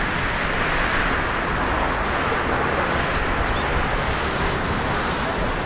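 Boeing 747-400F freighter's four jet engines at takeoff thrust during the takeoff roll and rotation, a steady, even jet noise.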